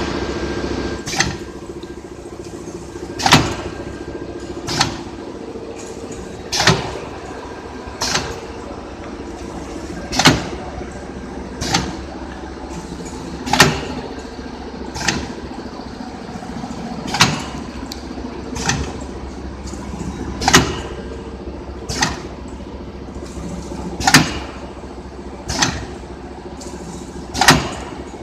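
Automatic collar-type cup filler pouch packing machine running, with a steady motor hum and a sharp mechanical clack about every 1.7 seconds, alternating louder and softer, as it works through its pouch-forming and sealing cycle.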